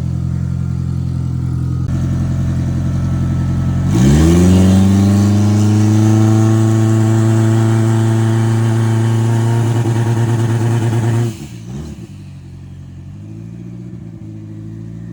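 Turbocharged race car engine running, then revved sharply about 4 seconds in and held at a steady high rpm for about seven seconds before dropping back suddenly to a lower, quieter idle.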